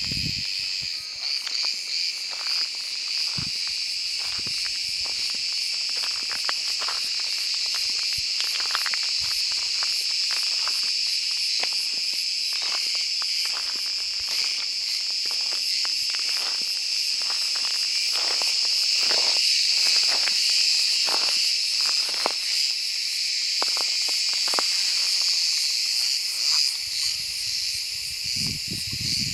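A large cicada singing: a steady, continuous high-pitched buzzing drone that does not break, with scattered faint clicks underneath.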